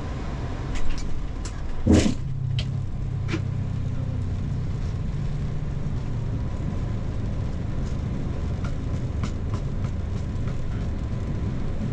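Boeing 737-8 MAX rolling out on the runway after landing, heard inside the cockpit: a steady low rumble with scattered light clicks and one sharp clunk about two seconds in.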